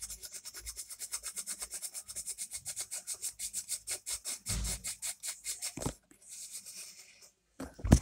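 Plastic drum of a homemade miniature washing machine turned by hand, rubbing against its tub in a fast, even rasp of about ten strokes a second with a couple of soft bumps, then stopping about six seconds in: the imitated spin cycle braking to a stop.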